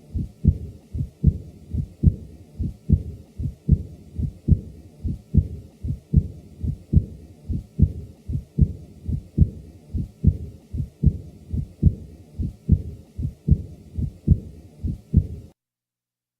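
Heart sounds recorded at the chest: a regular heartbeat, each beat a louder thud followed by a softer second sound, at about 75 beats a minute. An early diastolic murmur from mild aortic regurgitation follows the second sound. The recording stops about a second before the end.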